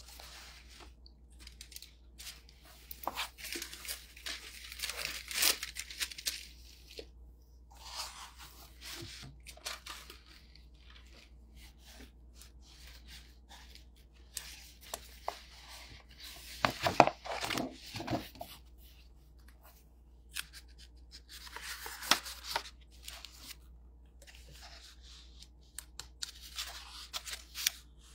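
Paper rustling and crinkling in short irregular bouts as sheets or cards are handled, with a few light knocks; the loudest handling comes a little past halfway.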